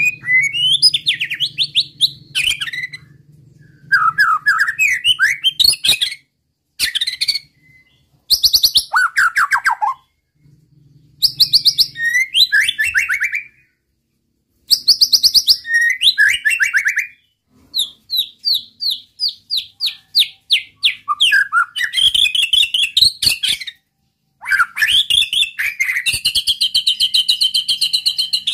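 White-rumped shama (murai batu) in full song: bursts of varied whistled phrases and fast trills broken by short pauses, with a run of quick repeated notes in the middle and a longer held phrase near the end.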